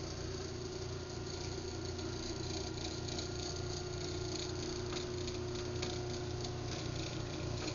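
Craftsman 139.54920 garage door opener running its open cycle: a steady motor hum with a light rattle from the drive.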